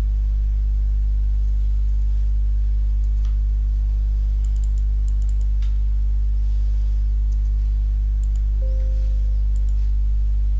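A steady low electrical hum throughout, with faint computer keyboard typing and mouse clicks in a few short clusters around the middle and again near the end, as data is entered into a form.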